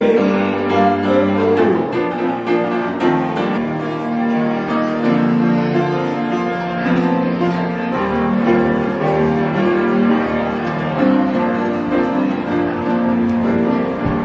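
Instrumental music with piano and long held low notes, playing steadily.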